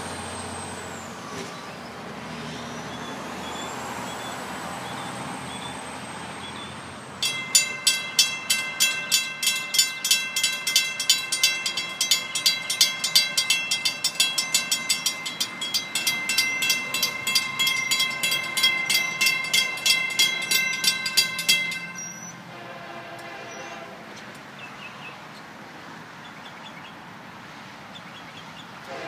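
Railroad grade-crossing warning bell ringing in rapid, evenly spaced strokes while the crossing gates lower, warning of an approaching train. It starts about seven seconds in and cuts off suddenly about twenty-two seconds in.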